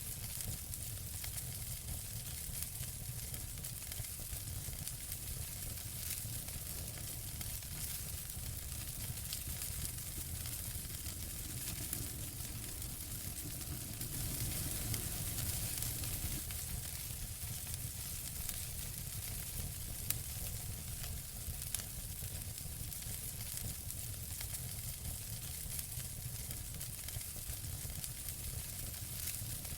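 Wood fire burning: a steady hiss over a low rumble, dotted with frequent small crackles and pops. About halfway through the fire briefly flares louder and hissier, and a sharper pop follows a few seconds later.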